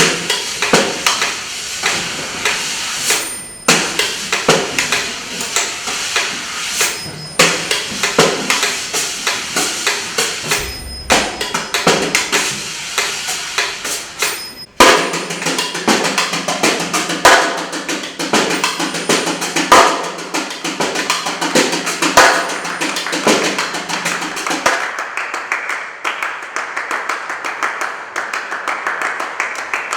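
Percussion music: quick, dense strokes on drums and struck instruments, cut together in short sections. A low steady tone sounds underneath through the middle of the passage.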